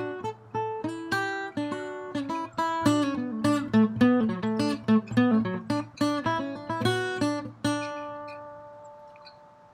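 Solo acoustic guitar music: a run of plucked notes ending in a final chord that rings out and fades away near the end.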